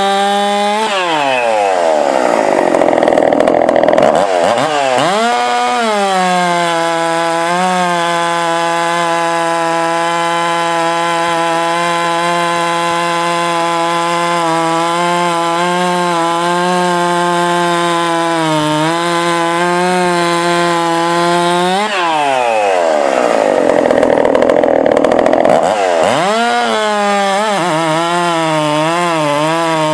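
Husqvarna 372XP 71cc two-stroke chainsaw with a ported top end running at high revs. Twice it drops sharply in pitch as it is loaded in a cut, with the noise of chips flying, then revs back up: once about a second in and again about two-thirds of the way through. Near the end the revs waver up and down.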